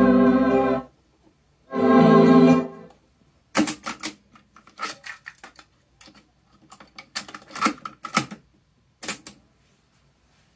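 Sung music playing from an Akai GXC-725D cassette deck stops, plays again for about a second, then stops. A run of sharp mechanical clicks and clunks follows from the deck's piano-key transport buttons and the cassette door being ejected open and shut as the tape is handled.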